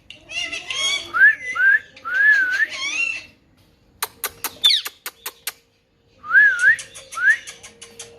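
Pet parrot whistling in short rising and wavering notes, with a quick run of sharp clicks in the middle.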